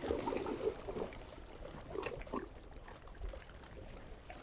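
Seawater washing up against shoreline rocks and trickling back off them, with louder splashes near the start and again about two seconds in.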